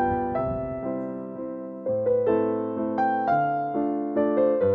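Background music: slow, soft piano playing chords and a melody, each note struck and left to fade.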